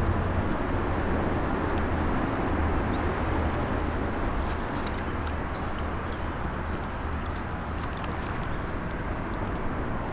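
Steady rushing and rumbling of wind on the camcorder microphone on open water, with no speech over it.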